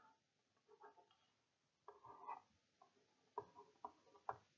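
Very faint taps and scrapes of a digital stylus on a tablet while handwriting: a few short soft ticks, more of them near the end.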